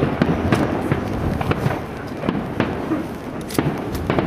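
Aerial fireworks shells bursting in an irregular series of sharp bangs, with the strongest bangs near the end.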